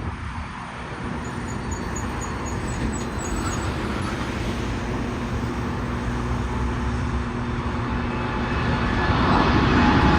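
Airbus A330-343 jet engines (Rolls-Royce Trent 700) running steadily, growing louder over the last couple of seconds.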